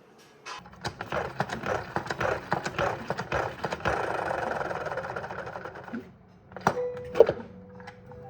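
A small mechanical device rattling and whirring for about five seconds, dying away. It is followed by two sharp knocks, the second the loudest sound, with a short hum.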